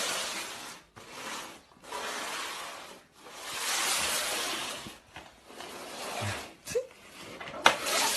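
A series of hisses, each one to two seconds long, dying away after about five seconds, with two sharp clicks near the end.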